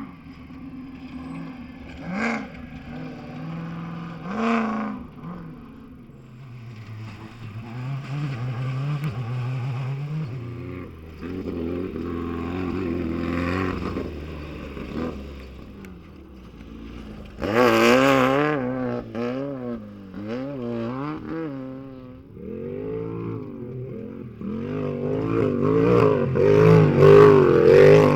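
Off-road race vehicles passing one after another, their engines revving with a rapidly wavering pitch. The loudest, closest pass comes about 17 seconds in, with a burst of noise across all pitches, and another loud engine builds up near the end.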